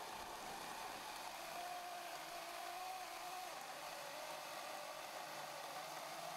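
Oregon battery-powered chainsaw with a self-sharpening chain cutting through stacked 4x4 lumber under load. It gives a steady whine from the motor and chain that wavers a little in pitch.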